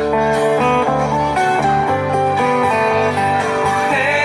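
Hula dance music played through stage PA speakers: a plucked guitar melody of short notes over held low bass notes.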